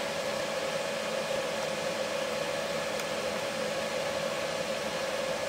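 Steady background hiss with a faint steady hum: room tone, with one faint click about three seconds in.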